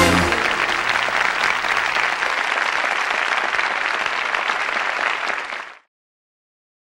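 The last note of a trot song cuts off, and applause and clapping follow, fading out near the end.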